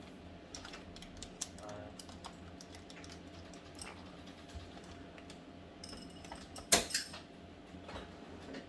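Scattered light clicks and taps of hands and a small tool working on a laptop's plastic case, with one sharper knock about two-thirds of the way through.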